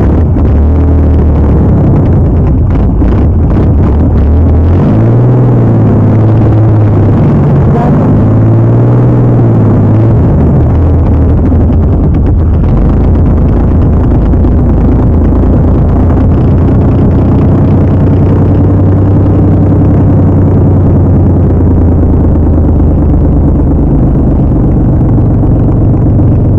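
Off-road mud-bog truck engine running very loud. It revs up and back down twice, about five and eight seconds in, then holds a steadier pull with slow changes in pitch.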